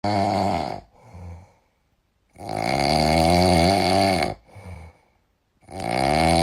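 A sleeping cat snoring loudly: three long snores about three seconds apart, each followed by a short, softer breath.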